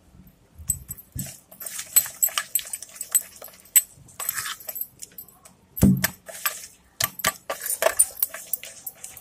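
Desi ghee being beaten by hand in a plastic bowl until creamy and butter-like: irregular wet squelching and slapping, with a heavier thump about six seconds in.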